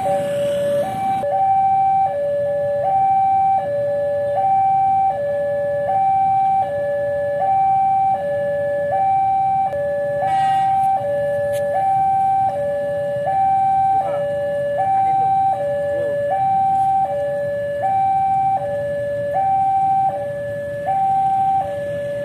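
Railway level-crossing warning alarm sounding as the crossing closes for an approaching train. It is a steady two-tone signal switching between a higher and a lower tone about every half second. A short buzzing burst cuts in about ten seconds in.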